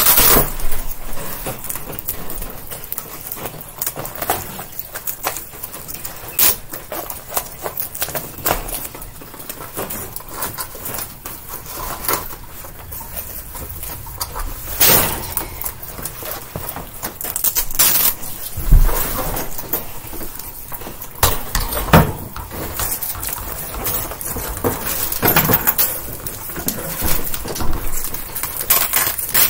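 Wire guinea pig cage panels being handled and parts snapped onto them: irregular clicks, rattles and knocks of metal wire and plastic, with a few louder knocks midway.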